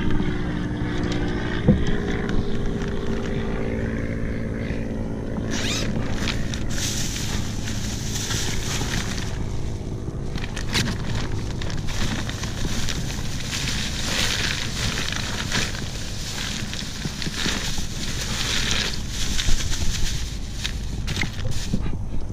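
Wind buffeting the microphone, and from a few seconds in, rustling with scattered knocks and bumps from handling a fish and a fish bag inside a plastic deck hatch.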